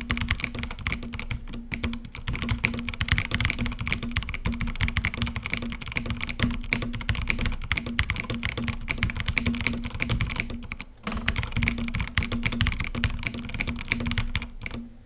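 Fast, continuous typing on an EvoFox Ronin TKL mechanical keyboard with red linear switches, a dense run of key clacks with a short pause about eleven seconds in.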